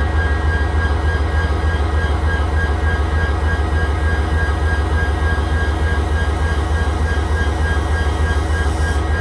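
WDP-4 (GT46PAC) diesel locomotive's 16-cylinder EMD 710G3B engine running steadily, a deep even hum with a steady high-pitched whine over it.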